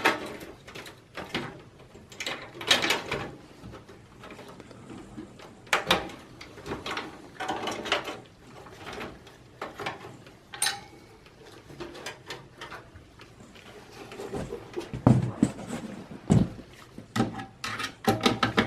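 Hands working inside a Dell Precision 3620 desktop tower, unplugging motherboard cable connectors: scattered plastic clicks and cable rustling, with a few heavier knocks against the case near the end.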